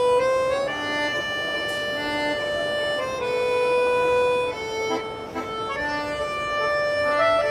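Two 3D-printed accordions playing a tune together: held reedy notes and chords that change every second or so.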